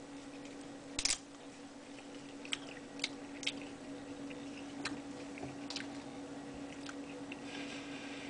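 A person biting into and chewing a dried aji panca chilli pod: one sharp crack about a second in as the pod is bitten, then scattered small crunches while chewing. A faint steady hum runs underneath.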